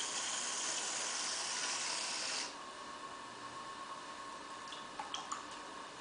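A tool cutting into soft clay on a spinning potter's wheel makes a steady scraping hiss that stops abruptly about two and a half seconds in. After that only the wheel's steady hum remains, with a few light clicks near the end.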